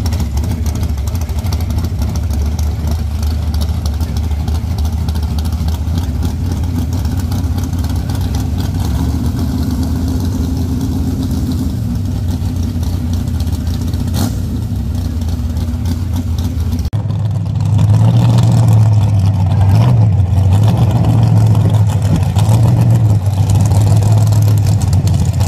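Race-built Chevy S10 pickup's engine idling with a steady low note. About two-thirds of the way in, it cuts to a louder truck engine, its pitch rising and falling with small throttle blips as the truck drives along the street and turns.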